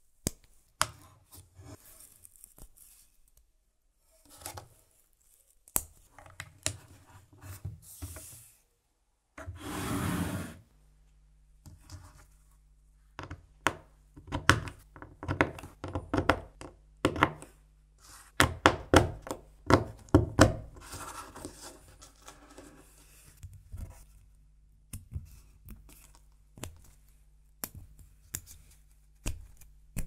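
LEGO Technic plastic parts clicking and snapping together by hand, with pins pushed into a beam and pieces tapping on the tabletop in irregular clicks and knocks. A brief rustling rush comes about ten seconds in.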